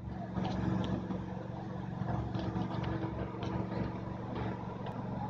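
A motor running steadily with an even, low hum.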